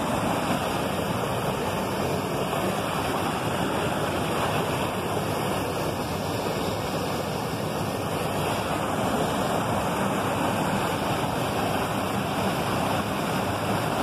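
Rushing water of a waterfall and its stream: a steady, even rush that does not change.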